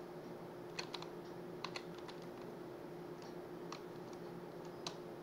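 A handful of scattered keystrokes on a computer keyboard, about five separate clicks a second or so apart, over a steady faint electrical hum.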